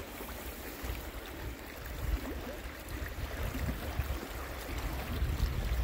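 Shallow lake water lapping among shoreline stones, under an uneven low rumble of wind on the microphone.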